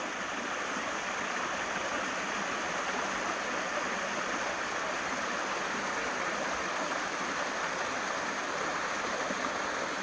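A small mountain stream cascading over rock slabs and between boulders, making a steady rush of water.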